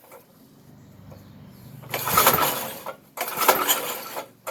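Vintage Briggs & Stratton 5 hp flathead engine being cranked over twice without catching, each stroke about a second long. The owner puts the failure to start down to carburettor trouble: fuel squirting around the throttle shaft, probably flooding the engine.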